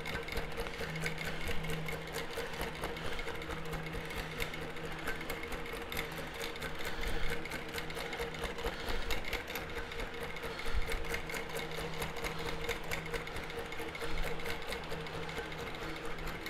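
Innova longarm quilting machine running and stitching, a steady hum under a fast, even patter of needle strokes as it is guided across the quilt. It is sewing an all-over meander basting pass through the quilt top, batting and backing.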